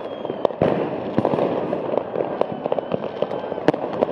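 New Year's Eve fireworks: rockets and firecrackers going off near and far in a dense, continuous string of bangs and crackling, with a faint high whistle or two. The loudest bang comes about three and a half seconds in.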